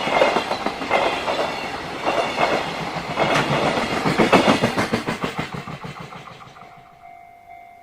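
JR Freight freight train's wagons clattering over the rail joints in a rhythmic clickety-clack, fading away as the train passes. Near the end a level-crossing warning bell's repeating electronic tone comes through.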